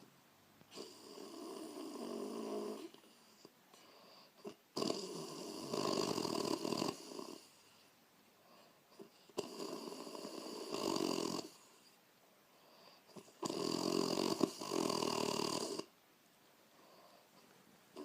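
A woman snoring in a steady rhythm: four long snores of about two seconds each, one every four seconds or so.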